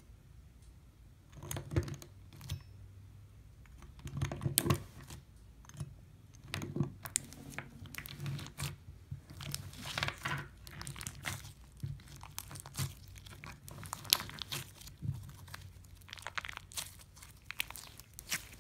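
Clear green glue slime with sharp plastic diamond beads mixed in, squeezed and kneaded by hand: irregular sticky crackles, pops and clicks that start about a second and a half in.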